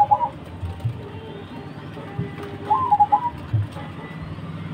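Zebra dove (perkutut) cooing: a short phrase of rolling coos at the very start and another about three seconds in, with a few low thumps between.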